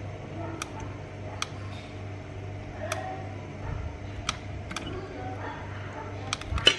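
Soldering on a welding inverter's circuit board: scattered sharp clicks, about one or two a second, over a steady low hum, with the loudest click at the very end.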